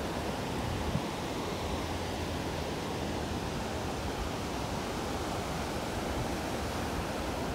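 Gulf of Mexico surf washing onto a sandy beach: a steady, unbroken rush of waves.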